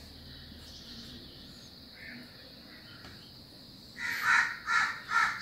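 A crow cawing: three harsh caws in quick succession, about half a second apart, starting about four seconds in after a stretch of quiet background hiss.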